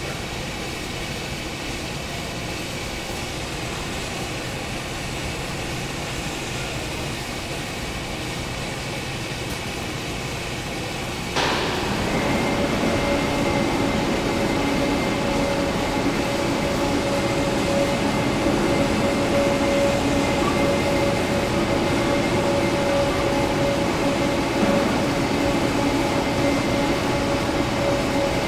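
Steady running noise of metalworking factory machinery. About eleven seconds in it abruptly grows louder, and a steady whine of several tones joins it, as of a machine starting up.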